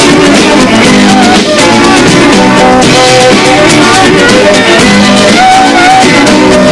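Background music with guitar, loud and even, with a few long held melody notes over it.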